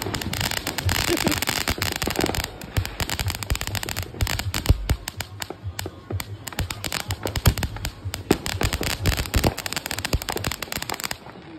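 Ground fountain fireworks spraying sparks: a hissing rush for the first couple of seconds, then a dense, irregular crackle of many small pops that thins out near the end.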